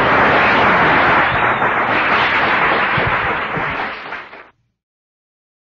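Audience applauding, fading and then cut off to silence about four and a half seconds in.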